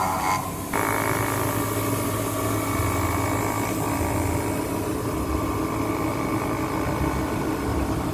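Three-axis CNC machining center running with a steady mechanical hum, with a brief dip and change in the sound under a second in.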